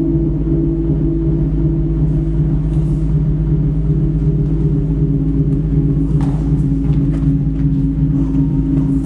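Steady, loud low drone of sustained tones over a deep rumble, held without change, from the dance soundtrack. A few faint short taps and rustles come in the second half.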